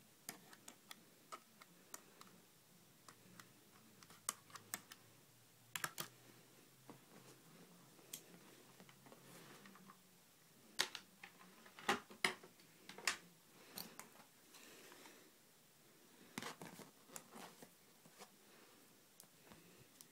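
Faint, irregular clicks and taps from handling a phone, its USB cables and the camera, with a few louder knocks a little past halfway.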